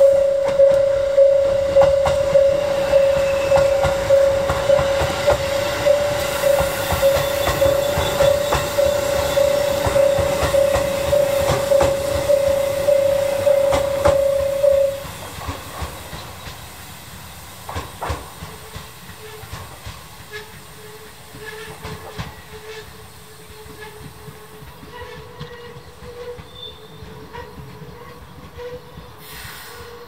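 Japanese level crossing bell ringing in a steady, rapid ding-ding, about one and a half strikes a second, while a JR 373 series electric train runs through the crossing, its wheels clattering over the rail joints. The bell cuts off abruptly about halfway through, leaving the quieter running of the train as it moves off.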